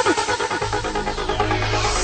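Background electronic dance music with a fast, even pulse over a held bass note.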